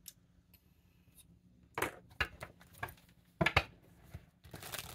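Handling noise on a table: a few soft clicks and taps, then a short rustle near the end.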